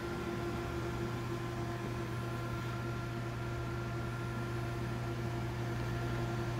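DEK Horizon 02i stencil printer running idle: a steady low hum with a fainter steady whine and fan noise above it, unchanging throughout.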